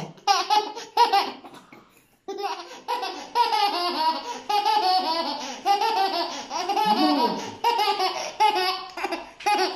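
Baby laughing hard in quick repeated high-pitched bursts, with a short pause about two seconds in before a long run of laughter.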